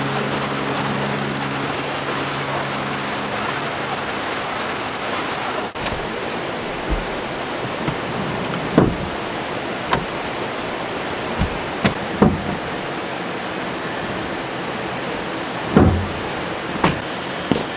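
Steady rush of a stream flowing over rocks, with a few held music notes fading out in the first three seconds. After about six seconds, scattered knocks and thumps of a Suzuki Jimny's seats being folded down and a sleeping mat laid out, over the same steady rush of water.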